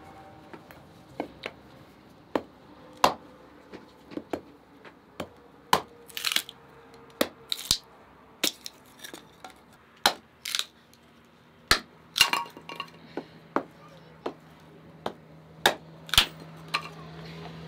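Scattered sharp clinks and knocks of dishes and kitchen utensils during food preparation, at irregular intervals, a few with a short rasp. A low steady hum comes in about two-thirds of the way through.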